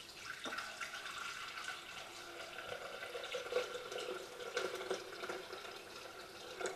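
Water poured in a steady stream from a glass jug kettle into the stainless steel mixing bowl of a Thermomix TM5, filling it with water for steaming.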